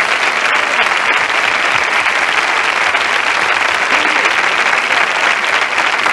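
A studio audience applauding steadily, a dense even clapping.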